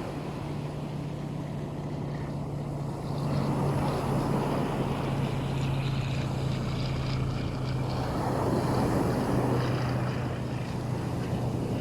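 Black Sea waves washing onto the shore in slow swells, with the steady low drone of a boat engine running offshore; the drone drops slightly in pitch about two-thirds of the way through.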